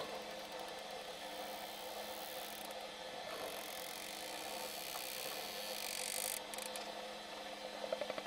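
Underwater sound around a pod of bottlenose dolphins: a steady hiss and a low hum, with dolphin echolocation clicks that build into a rapid click train near the end.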